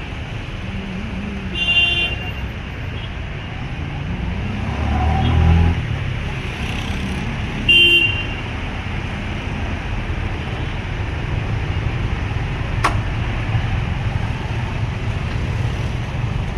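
Street traffic running steadily, with two short car horn toots, one about two seconds in and another about six seconds later. A vehicle passes louder a few seconds in.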